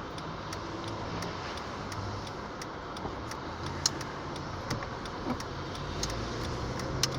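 Steady car-cabin road and engine noise with an even ticking, roughly two clicks a second, from the turn signal.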